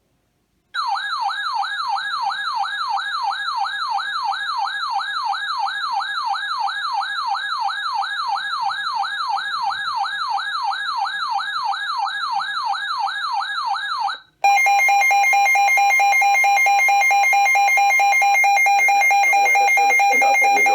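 Electronic alert tones: a warbling siren-like tone sweeping up and down about three times a second, then, after a brief cut about 14 seconds in, a steady, shrill two-tone Emergency Alert System attention signal announcing a new weather warning.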